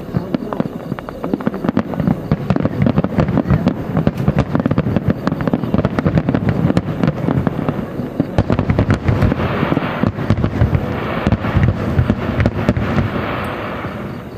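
Fireworks display: a rapid, continuous barrage of shell bursts and crackles, tailing off near the end.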